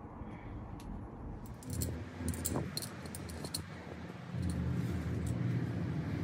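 Light metallic clinking of small metal parts and tools being handled during engine assembly, then a steady low mechanical hum from a little past the middle onward.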